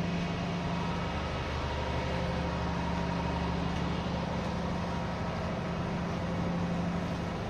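Engine running steadily: a low, even drone with a steady hum, a deeper note joining about a second in.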